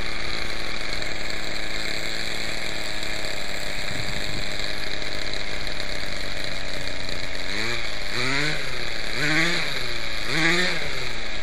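Glow-fuel engine of a Quickie 18 RC helicopter running at low throttle, its pitch slowly sagging. In the last few seconds it is blipped up and down several times in quick rises and falls. It is struggling to hold a smooth low idle.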